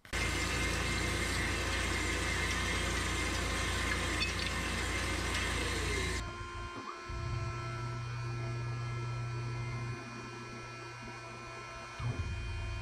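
Hydmech S-20A horizontal band saw running with a steady machine hum. About six seconds in the sound changes abruptly to a quieter, lower hum.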